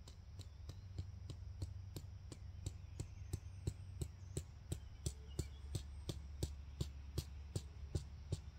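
A mallet pounding a tent stake into the ground: short, sharp knocks at an even pace of about three a second, over a steady low hum.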